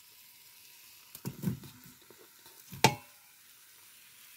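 Chopped cooked chicken being tipped into a stainless-steel Instant Pot inner pot onto cooked spaghetti: soft thumps about a second in, then a single sharp clink that rings briefly, close to three seconds in, over a faint steady hiss.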